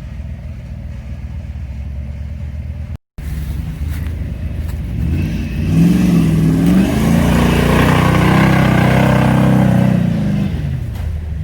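Off-road vehicle engine running at a steady low speed. After a short break it revs up, holds at higher revs with the pitch wavering for several seconds, then eases off near the end.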